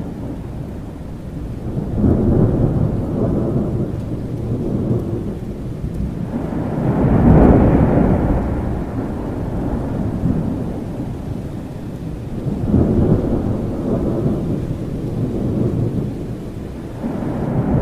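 Thunder rumbling again and again over steady rain, the loudest roll about seven seconds in and another building near the end.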